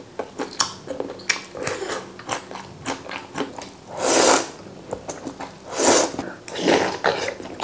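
Close-up eating: chewing with small wet clicks, then three loud slurps of noodles sucked up from a soup bowl, the first about four seconds in and two more close together near the end.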